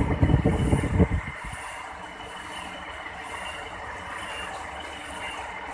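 Metal lathe running steadily while a combination spade drill cuts into the spinning workpiece, with a faint high tick about once a second. For about the first second there is loud low buffeting, with the phone held right against the spinning chuck.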